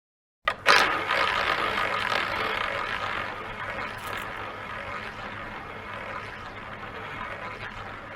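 Roulette ball launched around the wheel's track: a sharp start about half a second in, then a steady rolling whir that slowly fades as the ball loses speed, with a light click about four seconds in.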